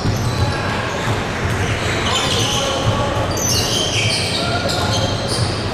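Basketball game court sound in a large hall: a basketball being dribbled over a steady background of voices, with short high-pitched sneaker squeaks on the court floor, most of them in the second half.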